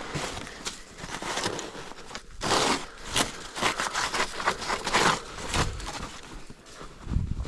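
Snow crunching and scraping in a run of irregular strokes, the loudest about two and a half and five seconds in.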